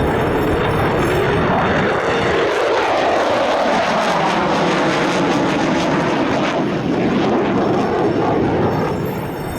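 F-16 fighter jet's engine noise, loud and steady, with a tone sliding down in pitch about two to four seconds in as the jet passes.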